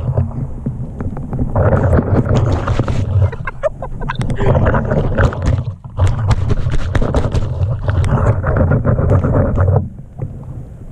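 FPV quadcopter's brushless motors spinning their props while the drone is dunked nose-first in a puddle, churning and splashing the water to wash off mud. The motors run in long surges with two brief dips and cut out about ten seconds in.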